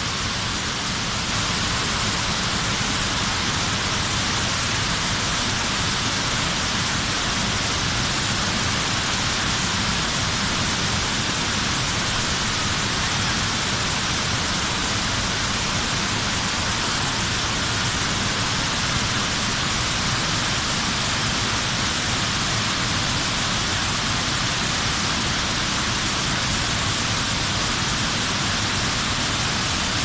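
Waterfall and shallow rapids rushing over a rock shelf: a steady, unbroken noise of falling and running water.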